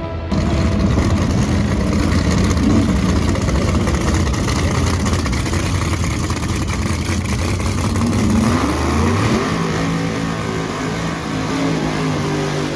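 A drag race car's engine running loud, starting abruptly. About two-thirds through it revs up in pitch, then settles into a steadier, lighter note.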